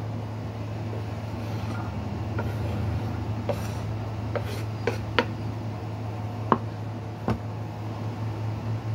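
A wooden cutting board and kitchen knife knocking and scraping as chopped green peppers are cleared off the board, with about six sharp knocks over a few seconds. A steady low hum runs underneath.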